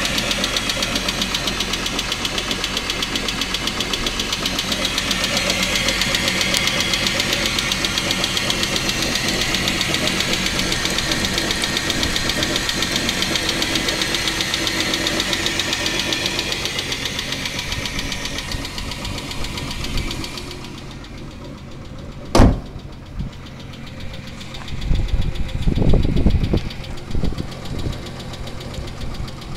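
Chrysler 300M's 3.5-litre V6 running with a rapid, steady knocking rattle, a sign of something wrong inside the engine whose cause the owner does not know. About two-thirds of the way through the sound turns much quieter and duller, then a single sharp bang is heard, followed by some low rumbling thumps near the end.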